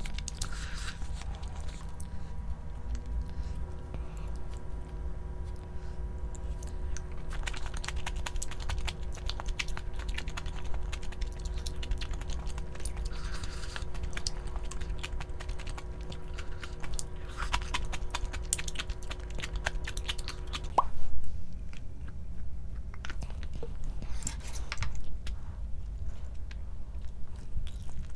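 Close-miked chewing and crunching of food, with many short crisp crunches over a steady low hum. A few steady faint tones stop abruptly about two-thirds of the way through, with a louder knock.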